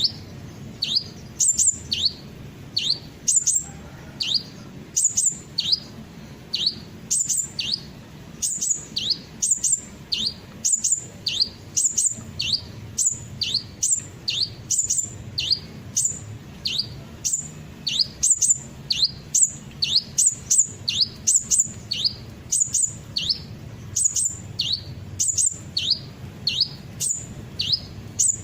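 Sunbird calls (the 'kolibri ninja') played as a lure recording: sharp, high-pitched chirps, each a brief very high note with a quick falling sweep, repeated evenly about twice a second.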